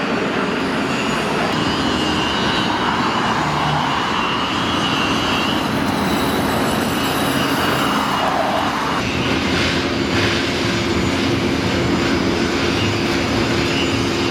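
Loud, steady engine noise from passing traffic or aircraft, with a faint steady hum and a pitched band that dips about eight seconds in.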